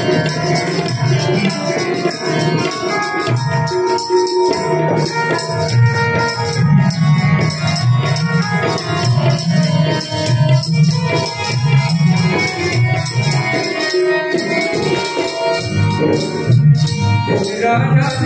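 Instrumental passage of a bhajan: a harmonium plays held melodic notes over tabla strokes and a shaken, jingling tambourine.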